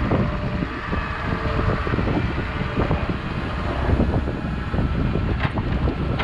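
Doosan 140WV wheeled excavator's diesel engine running under load as it swings and digs with its bucket, with wind rumbling on the microphone. A sharp knock stands out about five and a half seconds in.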